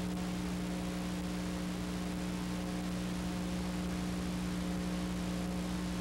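Steady electrical hum with an even hiss behind it, unchanging throughout, with no other sound.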